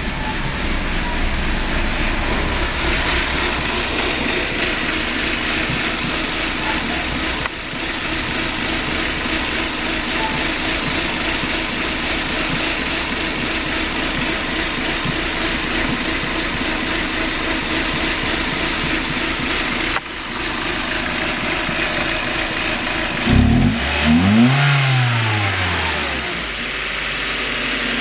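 Mazda 323F engine idling roughly, with the throttle blipped once near the end so the engine speed rises and falls before settling back to idle.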